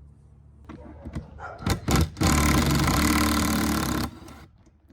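A few clicks and knocks of handling, then an electric power tool's motor runs steadily at one speed for about two seconds and stops abruptly.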